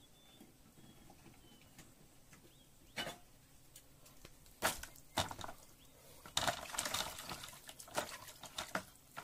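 Hands washing small river fish in a plastic basin of water, sloshing and splashing busily in the second half. A few sharp knocks come first, at about three and five seconds.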